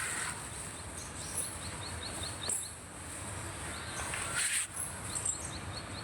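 Outdoor ambience: a rapid series of short, high chirps, about four a second, in two runs, with three brief rustling hisses.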